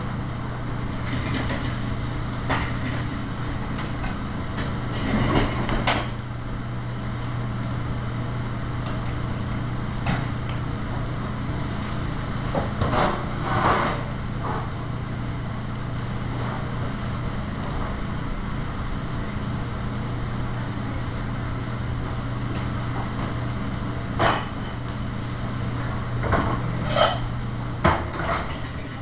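Steady low hum of a commercial kitchen's exhaust hood and gas range, with occasional clanks of metal pans and utensils, several close together near the end.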